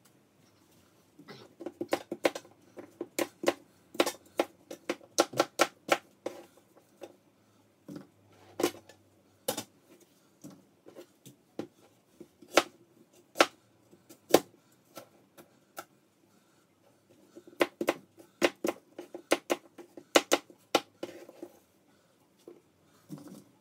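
Kitchen knife chopping apples on a plastic cutting board: an uneven run of sharp knocks in quick clusters, with short pauses between.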